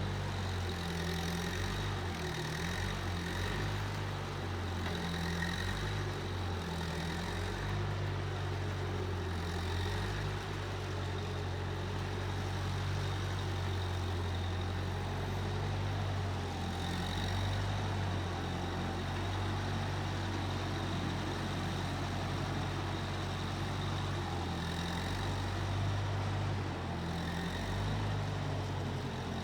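Case 1530 Uni-Loader skid steer's engine running at a steady speed, with a faint high whine that comes and goes.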